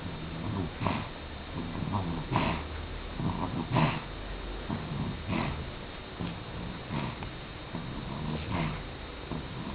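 A sleeping baby boy snoring, one breath about every second and a half.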